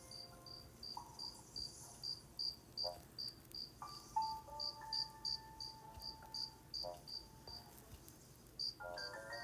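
A cricket chirping steadily, about three chirps a second, pausing for about a second near the end. Under it a few soft, sustained musical notes are held.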